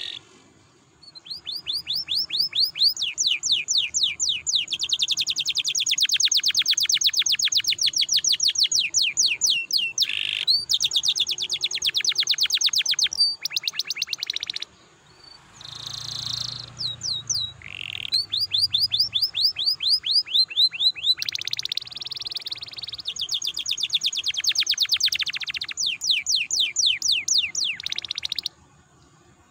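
Domestic canary singing long rolling trills of fast, evenly repeated high notes, broken by short pauses about a second in and around the middle. There is one rougher, noisier phrase about halfway, and the song stops shortly before the end.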